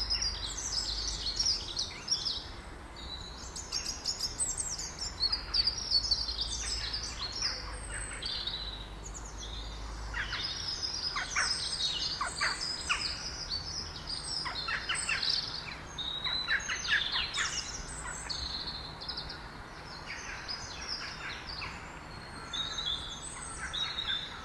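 Small songbirds chirping and singing, many short high calls and trills overlapping throughout, with a faint low rumble under them for about the first half.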